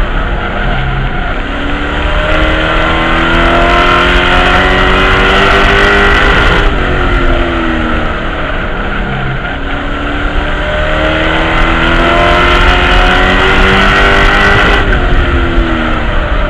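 Race truck's engine heard from inside the cockpit, revs climbing under full throttle, falling off sharply about seven seconds in as the driver lifts, then climbing again and falling off once more near the end: two cycles of throttle and lift around a short oval.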